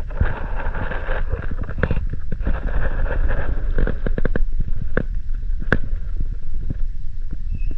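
Wind buffeting the camera microphone: a loud, uneven low rumble with scattered clicks and crackles.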